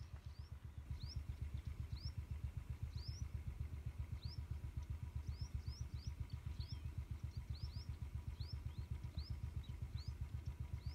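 Royal Enfield motorcycle engine running at low speed with an even, rapid chugging beat that stays steady throughout. Birds chirp over it with short rising calls.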